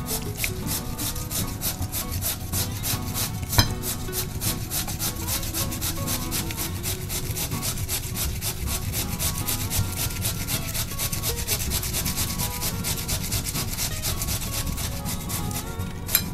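Raw potato being grated on a stainless steel cone grater: fast, even rasping strokes, with one sharp knock a few seconds in.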